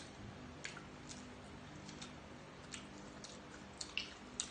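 Close-up eating sounds: a few short, sharp wet clicks and smacks of chewing food, scattered over a faint steady room hum.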